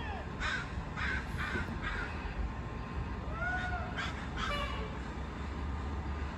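A bird calling repeatedly in short, rough calls, a cluster of four or so in the first two seconds and another group near the middle, over a steady low background rumble.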